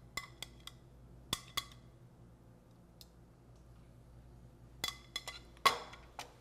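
Metal serving tongs clinking against china plates while creamed spinach is served: a few light taps in the first two seconds, then a cluster of clinks near the end, the loudest as the tongs are set down on a plate.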